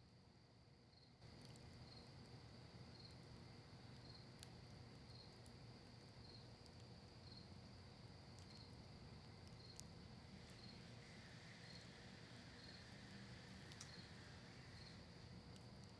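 Faint wood campfire crackling, with a few scattered sharp pops over a low steady rush from the fire. An insect chirps steadily about once a second throughout. Everything gets slightly louder about a second in.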